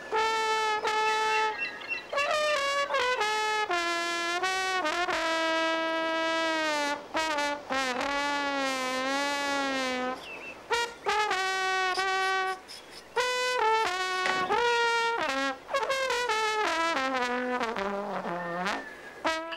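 Solo trombone playing a slow line of held notes joined by slide glides, with a wavering note about halfway through and a long slide down near the end.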